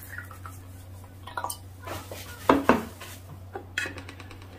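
Soju poured from a green glass bottle into a shot glass, with a short trickle at the start. Then sharp glass knocks and clinks on the table as the bottle is set down and the shot glass picked up, the loudest a pair of knocks about halfway through.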